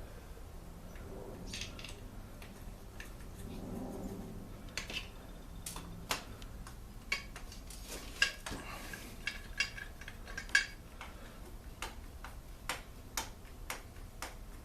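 Small metal parts and tools clicking and clinking on a workbench as a two-stroke leaf blower engine is reassembled, with irregular taps and a few brief metallic rings, the loudest around two-thirds of the way through.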